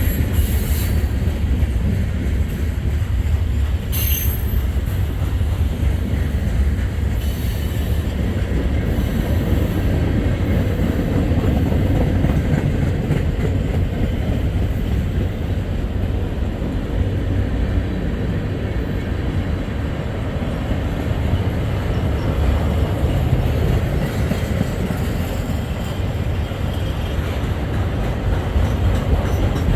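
Freight train cars rolling by with a steady heavy rumble, and a few short high-pitched wheel squeals.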